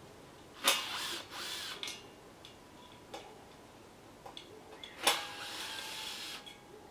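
Cordless drill running in short bursts: two brief runs about a second in, each rising and falling in pitch, then a longer steady run about five seconds in. Each set of runs opens with a sharp knock.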